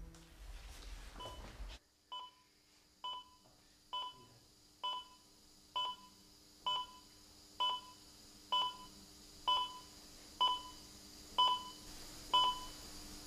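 Hospital patient heart monitor beeping steadily with each heartbeat, a short two-tone beep a little slower than once a second, about thirteen times, over a faint steady hum. The even rate is the sign of a regular pulse of about 65 beats a minute.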